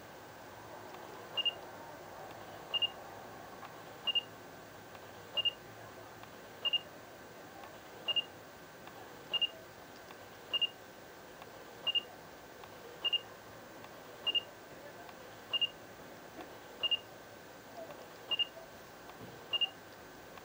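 Samsung NX10 camera's autofocus-confirmation beep, sounding as focus locks on each half-press of the shutter button. A short high beep comes about every 1.3 seconds, some fifteen times.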